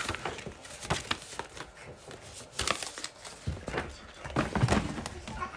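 Paper gift bags and paper wrapping rustling and crinkling as they are handled and items are pulled out, with irregular crackles and light knocks.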